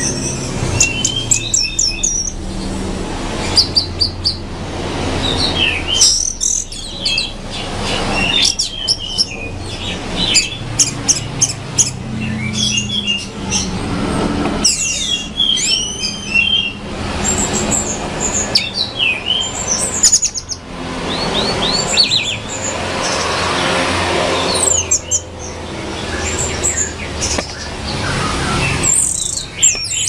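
Orange-headed thrush singing: a fast, varied run of whistles and chirps, one phrase after another with short pauses between.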